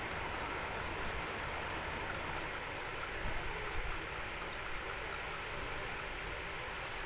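Metal fork beating a raw egg in a small bowl, its tines clicking against the bowl about six times a second, with a short pause near the end, over a steady background hiss.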